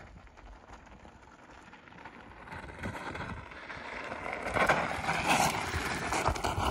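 Mountain bike tyres crunching and crackling over loose gravel on a descent, growing louder as the rider comes close and loudest over the last two seconds.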